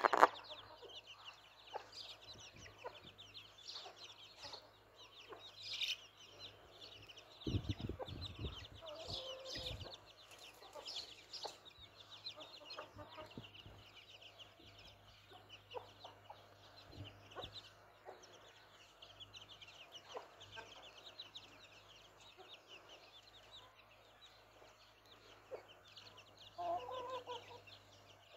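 A brood of chicks peeping continually in short, high chirps while feeding with a hen, which gives a few low clucks, most clearly near the end. A low rumble about eight seconds in.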